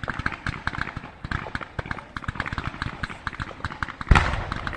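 Fireworks crackling: a dense, fast stream of sharp pops, with one loud bang about four seconds in.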